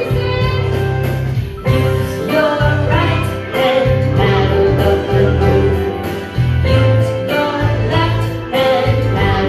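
Children's keyboard ensemble playing a simple tune together on pianos and electronic keyboards, over a steady bass line, with singing.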